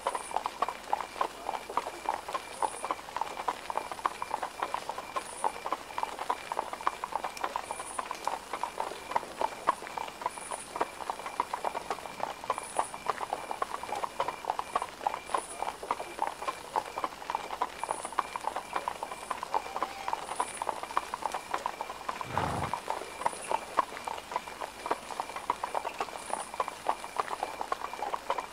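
Horse hooves clip-clopping steadily, many quick hoof strikes overlapping, with a single low thud about 22 seconds in.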